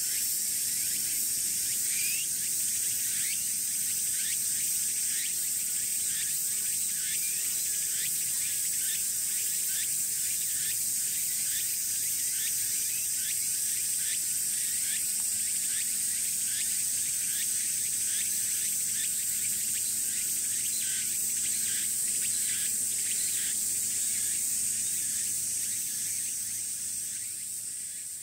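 Cicadas shrilling in summer trees: a dense, steady high buzz, with a lower chirping call repeated about twice a second over it. It fades out near the end.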